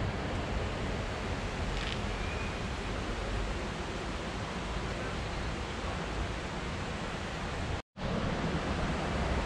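Steady rushing of falling water from Bridalveil Fall, an even roar that breaks off for a moment about eight seconds in.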